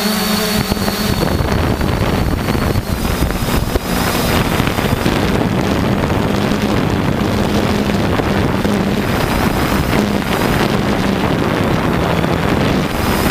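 A multirotor drone's motors and propellers humming steadily in flight, with heavy wind buffeting its on-board camera microphone.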